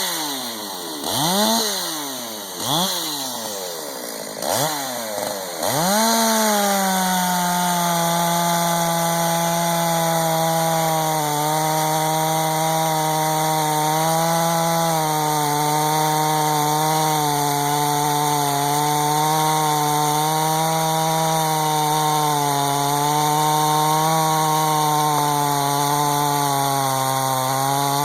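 Stihl MS361 two-stroke chainsaw (stock cylinder, dual-port muffler, 25-inch bar with Carlton chipper chain) blipped up and down about five times. About six seconds in, its pitch drops as it loads down into a long cut through wood, and it runs steadily under load with a slightly wavering pitch.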